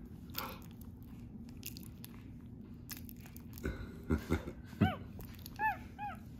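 Capuchin monkey chewing a mouthful of soft banana with wet mouth clicks and a few low knocks. It then gives several short, high, arched squeaks, the loudest about five seconds in and two quicker ones close together near the end.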